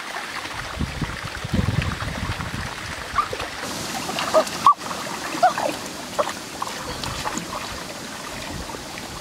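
Shallow rocky stream running, with splashing and sloshing as a person wades and gropes with their hands in the water. A few short squeaky notes come near the middle.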